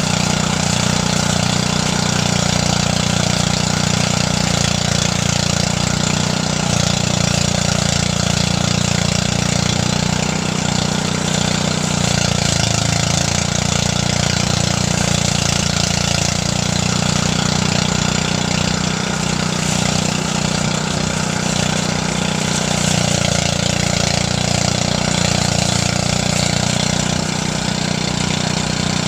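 Engine-driven rice threshing machine running steadily, its engine note held at one speed under a continuous rushing noise.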